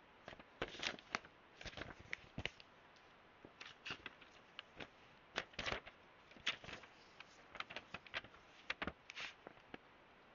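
Irregular soft clicks, taps and brief rustles as hands handle the packaging and parts of a DJI Mic Mini wireless microphone kit.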